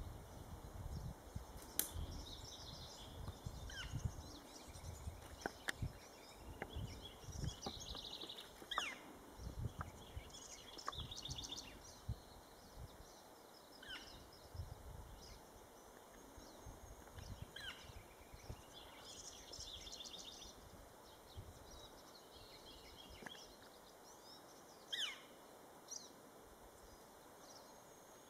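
Small songbirds chirping and trilling now and then over a low, uneven rumble that is strongest in the first half and fades later.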